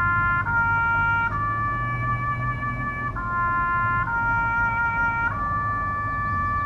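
Solo trumpet or bugle playing a slow ceremonial call of long held notes. A short phrase of changing notes settles on a long sustained note, and the pattern repeats.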